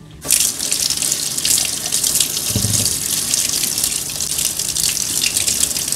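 Kitchen tap turned on about a quarter second in and running steadily, the water splashing over hands washing mushrooms in the sink. A brief low knock comes about two and a half seconds in.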